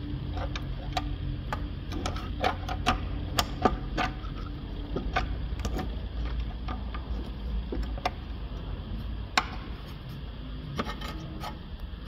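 Irregular light clicks and taps as hands work on a fitting under the car. They come about two a second for the first few seconds, then thin out, over a steady low hum.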